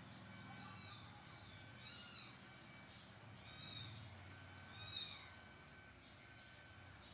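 A baby monkey giving four short, high-pitched calls, each rising and falling in pitch, about a second and a half apart; the last is the loudest.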